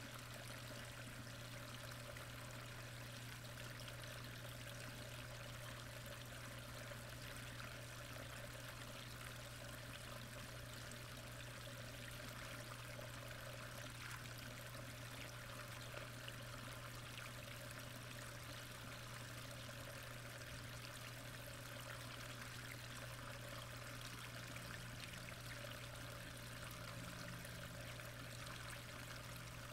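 Steady rush of flowing pond water, with a low steady hum underneath.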